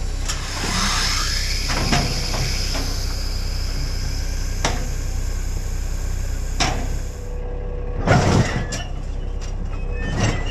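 Steady low rumble of a Big Bud four-wheel-drive tractor's engine pulling a seeding implement across the field, with repeated metal clanks and rattles from the implement's frame. The loudest clanks come about eight seconds in and again near the end.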